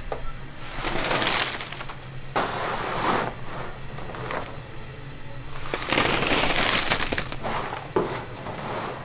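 Metal scoop scraping across a steel tabletop, pushing and gathering crumbly lumps of freshly made brown sugar with a gritty rasp. Two long scrapes stand out, about a second in and again about six seconds in, with shorter scrapes between.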